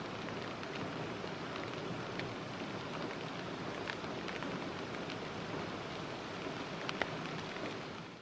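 Steady rain falling, a dense hiss dotted with sharper drop ticks, cutting off suddenly near the end.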